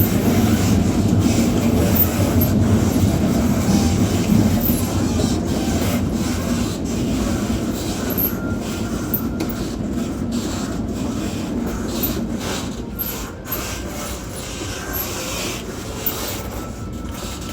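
Rumble and rasping at the gangway between two carriages of a moving passenger train: wheels running on the rails under the rubbing and creaking of the connection plates, the whole noise slowly getting quieter.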